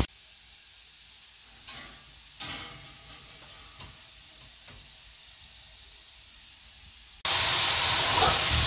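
Mostly quiet, with a couple of faint short sounds. About seven seconds in, a loud steady sizzle starts suddenly: potato chips deep-frying in a pan of hot oil.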